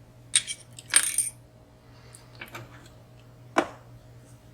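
Lock picks working inside a WSW W10 high-security padlock: a few sharp metallic clicks and clinks, spaced irregularly, as the pick lifts pins and the tools tap against the lock.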